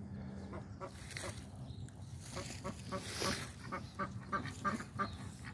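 Khaki Campbell ducks quacking: a few scattered quacks, then from about two seconds in a quick run of short, clipped quacks, several a second.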